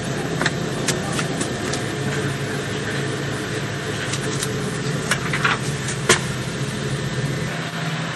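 Diesel train's engine idling, a steady hum heard from inside the train, with a few sharp clicks and knocks.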